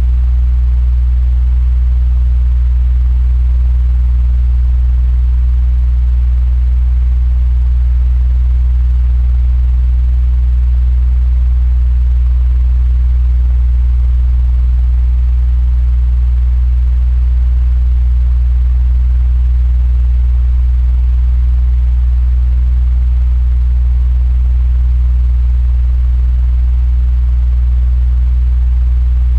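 Electric fan running steadily: a deep, even hum under a soft, constant airy hiss, unchanging throughout.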